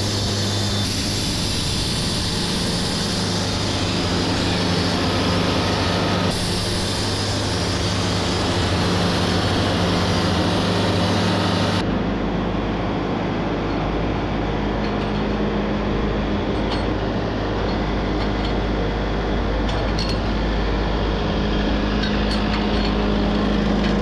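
Wood-Mizer portable band sawmill running steadily, its band blade sawing through a cant with a high hiss over the drone of the engine. About halfway through, the hiss of the cut stops and the low drone of the engine and sawhead carries on.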